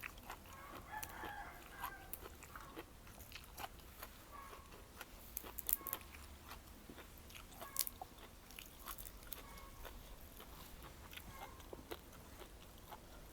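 Close-up chewing and biting, with many sharp clicks and crunches, the loudest two about six and eight seconds in. A rooster crows once, lasting about two seconds, at the start.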